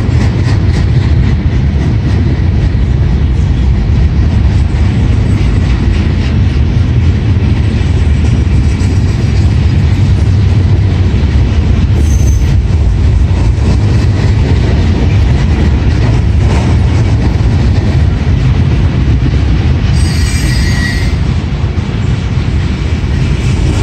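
Norfolk Southern freight train of gondola cars rolling past at close range: a loud, steady rumble and clatter of steel wheels on the rails, with a brief high wheel squeal about twenty seconds in.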